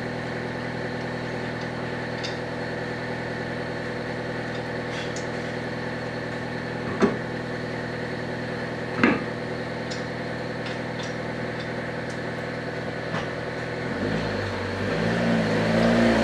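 A steady mechanical hum, with two short sharp knocks about seven and nine seconds in. Near the end a louder, wavering low hum rises over it.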